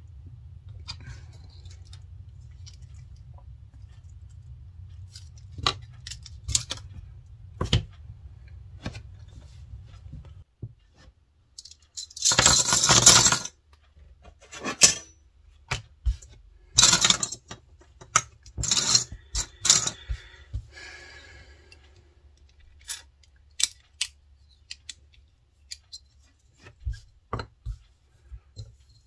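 Metal binder clips clattering onto a cutting mat: one loud clatter lasting about a second and a half a little before the middle, two shorter ones a few seconds later, and scattered clicks of clips being picked up and handled. A low steady hum under the first third stops abruptly.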